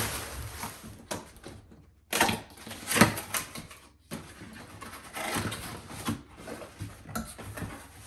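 Cardboard boxes and plastic air-pillow packing rustling, scraping and knocking as a boxed ring light is pulled out of a shipping carton and its top flap is opened, with a sharp knock about three seconds in.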